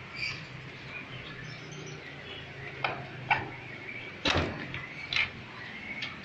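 Caged birds chirping in short calls, with a few sharp clicks or knocks, the loudest about four seconds in, over a steady low hum.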